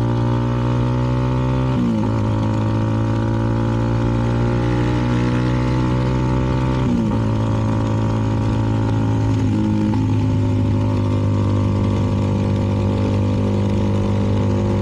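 CFMoto 300NK's single-cylinder engine running through a KO aftermarket exhaust while riding, heard from the rider's helmet. The engine note holds steady, with brief dips in pitch about two seconds in and again around seven seconds, and it settles at a new pitch near ten seconds.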